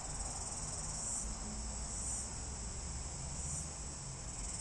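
Steady, high-pitched chirring of insects, swelling a little every second or so, over a low rumble.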